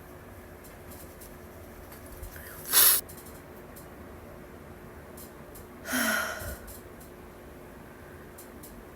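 A woman's congested nose giving two hard sniffs about three seconds apart, the second longer with a short breathy gasp in the voice; her nose is running from allergies.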